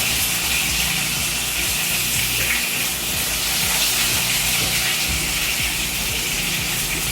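Steady sizzling from food cooking in a hot pan on the stove, with a low steady hum underneath.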